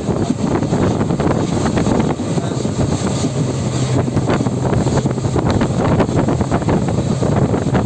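A moving train heard from on board: a steady rush of running noise with constant small rattles and clicks from the wheels and track, and wind buffeting the microphone.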